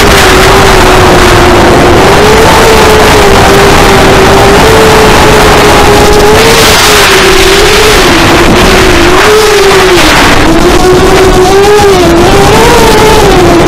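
FPV quadcopter's electric motors and propellers whining, heard from the camera on the craft. The pitch wavers up and down as the throttle changes, over a steady rush of wind on the microphone that swells briefly about six seconds in and again near ten.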